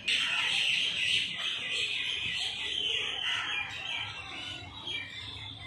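Many birds chirping and calling at once, a dense high-pitched chatter of overlapping calls.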